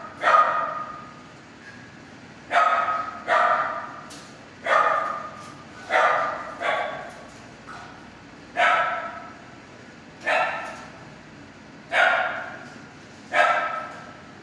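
A dog in an animal shelter kennel block barking repeatedly: about ten single loud barks, one every second or two. Each bark echoes off the hard kennel walls.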